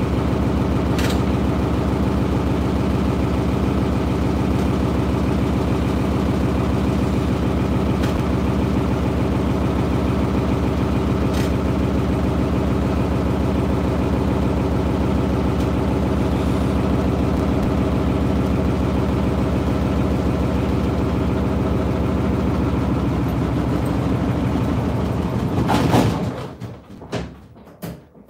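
Beko washing machine on a fast spin: a loud, steady drone of motor and drum with a fast regular beat and a few faint clicks. About 26 seconds in it peaks and then cuts away quickly as the motor shuts off and the drum winds down.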